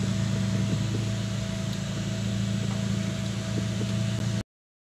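Vehicle engine and road noise heard from inside the moving vehicle, a steady low hum. It cuts off abruptly near the end.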